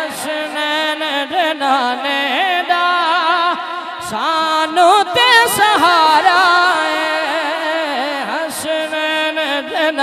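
A man singing a Punjabi naat into a microphone, drawing out long, wavering, ornamented notes between the lines of the refrain, over a steady held note beneath.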